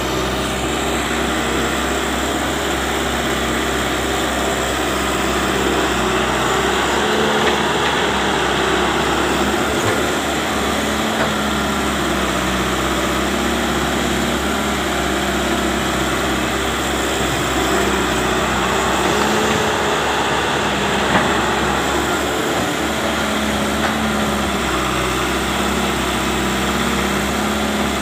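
Diesel engines of a wheeled excavator and a Nissan dump truck running steadily, with an even engine drone and no marked revving.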